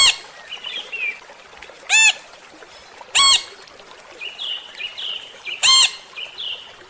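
Parrot squawking: four loud, short harsh calls, spaced one to two seconds apart, with softer high chirps in between.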